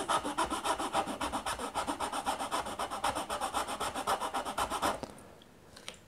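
The small metal file of a Nextool Mini Flagship multitool rasping along the edge of a wooden stick in quick, even back-and-forth strokes, several a second. The filing stops about five seconds in, and the file is cutting the wood well.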